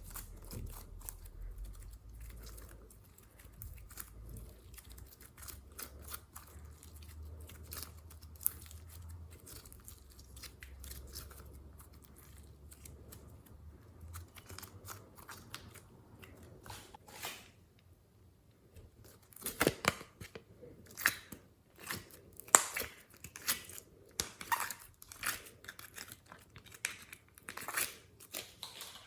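Glossy slime being squished, stretched and kneaded by hand, giving irregular sticky crackles and small pops; the pops grow louder and sharper from about two-thirds of the way through.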